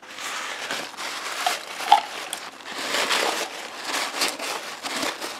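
Paper towel rustling and scraping as it wipes grease and gunk out of a metal air fryer pan, an irregular run of crinkly wipes and scrapes.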